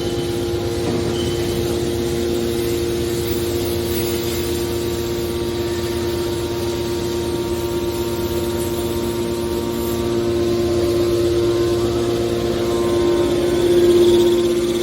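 Hydraulic scrap-metal baler running: a steady machine hum with a fixed pitch, growing louder near the end.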